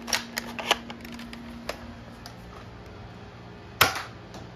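Plastic clicks and clacks of a Nerf blaster being reloaded: a few light clicks in the first two seconds, then one loud sharp snap near the end.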